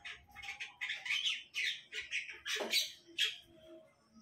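Small birds chirping: a run of short, high chirps, about two or three a second.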